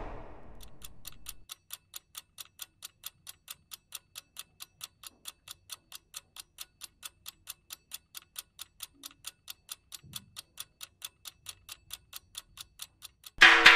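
Steady, even clock-like ticking, about four ticks a second. It begins as a musical chord dies away and stops just before the end.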